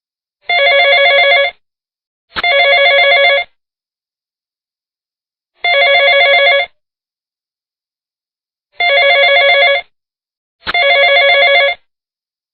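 Telephone ringing: five rings of about a second each, each with a fast flutter, silent gaps between, the first two and last two close together in pairs.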